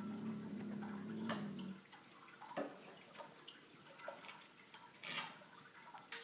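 Light scattered taps and clicks of a cat pawing at a toy on a wooden skateboard deck, a few knocks a second apart. A low steady tone with overtones sounds over the first two seconds and then stops.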